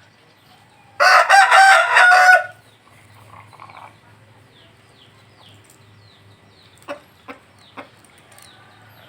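A rooster crows once, about a second in, for about a second and a half. Faint high chirps and three short sharp knocks follow later.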